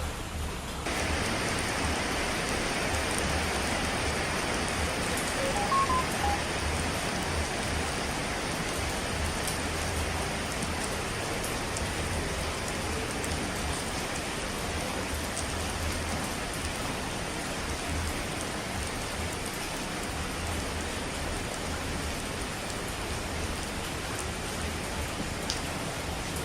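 Steady heavy rain, a dense continuous hiss with a fluctuating low rumble underneath; the hiss turns brighter about a second in.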